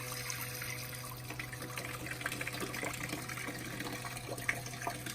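Water spraying steadily from an outdoor shower head, with the steady low hum of a small 12-volt water pump under it.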